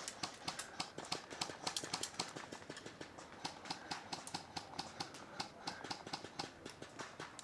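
Airsoft guns firing across the field in irregular sharp pops, several a second.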